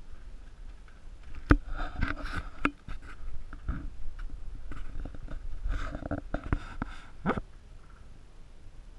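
Footsteps and irregular knocks on a hard floor in a room that echoes, with a cluster of sharp clicks about two seconds in and another around six to seven seconds in.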